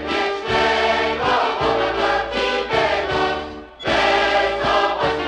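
Polka-band recording of a Polish Christmas carol, with a choir singing together over the band. The music breaks off briefly about four seconds in, then comes back in.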